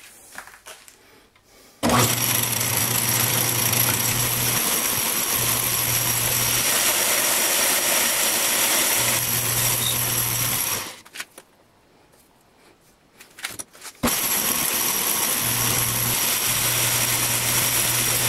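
Metal lathe running and taking a turning cut on a shaft held between centres. It starts about two seconds in, stops for about three seconds near the middle, then starts again for a second pass.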